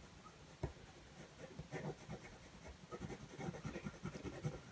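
Faint scratching of a white coloured pencil on black card, drawn in short, light strokes, with a brief tap about half a second in.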